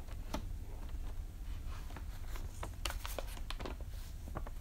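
Metal spoon stirring glue and water in a plastic container: scattered light clicks and taps of the spoon against the container, coming more often in the second half, over a steady low hum.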